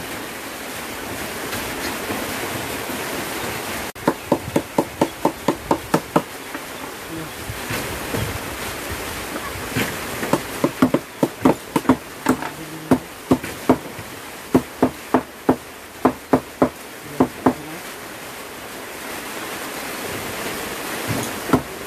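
Cleaver chopping with runs of sharp knocks, about three a second. They start about four seconds in and stop a few seconds before the end, over a steady hiss.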